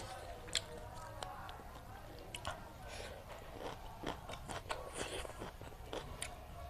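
Close-miked mukbang eating sounds: chewing and biting with irregular wet mouth clicks and smacks.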